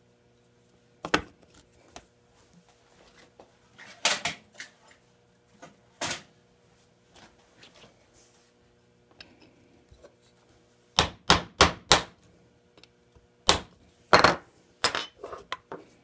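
Small hammer tapping a pin into a Poulan chainsaw oil pump housing resting on a wooden block: sharp single taps a few seconds apart, a quick run of four about eleven seconds in, then several more taps near the end.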